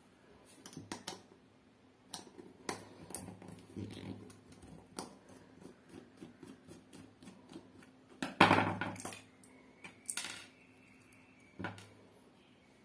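Small hard clicks, scrapes and knocks of a screwdriver working the screw of a plastic three-pin plug and the plug being opened and handled on a wooden bench, with the loudest clatter about eight seconds in.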